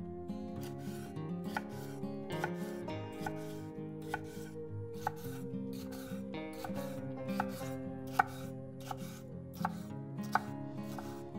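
Knife chopping vegetables on a cutting board, a steady cut a little more often than twice a second, over soft background music.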